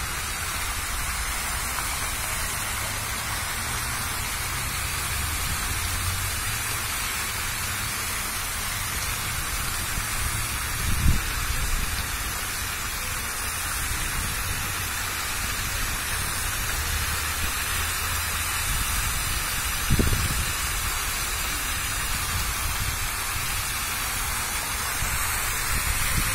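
Fountain water jets falling into the basin: a steady hiss of splashing spray, with a low rumble underneath and two brief low thumps, about eleven and twenty seconds in.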